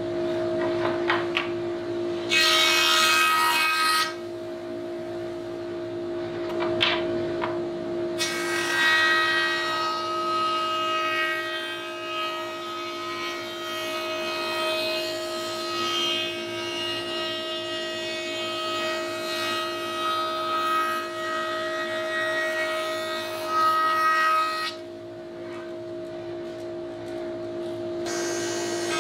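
A woodworking jointer running with a steady hum while a board is fed across its spinning cutterhead. There is a short cut about two seconds in, then a long cutting pass of about sixteen seconds that stops near the end, leaving the machine humming on its own. The rails being jointed straight have moved out of true since they were machined.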